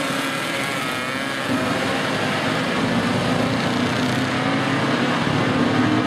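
A pack of classic road-racing motorcycles accelerating hard off a standing start, several engines revving loudly together, with pitches rising as they pull away.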